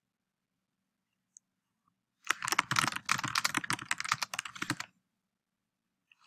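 Fast typing on a computer keyboard: a run of quick keystrokes starting about two seconds in and lasting about two and a half seconds.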